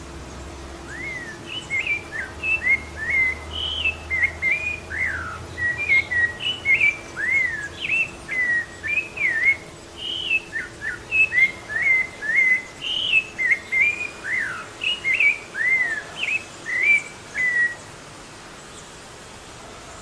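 Rufous-bellied thrush singing: a long run of short, clear whistled notes that slide up and down, several a second, ending near the end.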